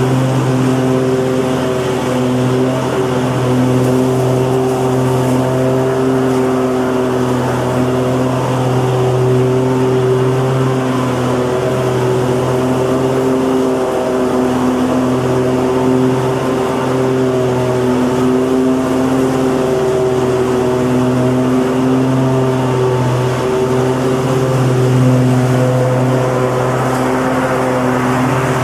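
Lawnmower engine running steadily at constant speed, its pitch wavering slightly as it mows.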